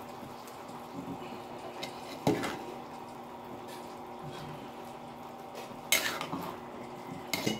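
A long-handled spoon stirring pork sinigang soup in an aluminium pot, scraping through the vegetables and broth with a few clinks against the pot's side: one about two seconds in, and louder ones around six seconds and near the end.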